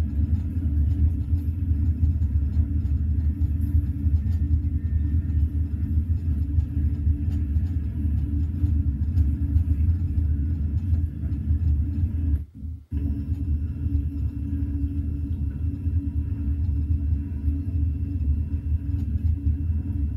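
Steady low rumble of a Eurostar Class 373 train running at speed, heard from inside the carriage. There is a brief dropout to near silence a little past halfway.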